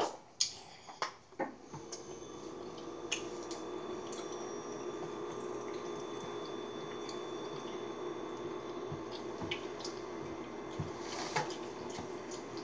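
Kitchen tap running steadily into the sink, starting about two seconds in after a few light clicks.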